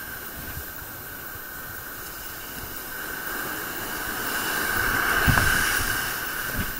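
Ocean surf washing on a sand beach: a steady hiss that swells to its loudest about five seconds in and then eases off, with a brief low thump near the peak.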